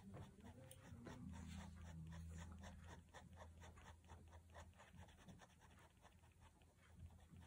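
Staedtler Pigmentliner 0.1 fine-liner pen scratching on paper in short, quick hatching strokes, about four or five a second, building up dark fur tone. The strokes are faint, with a low hum under them for the first few seconds.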